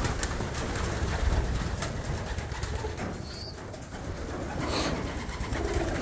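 Racing pigeons cooing, over a steady low rumble and a few light clicks.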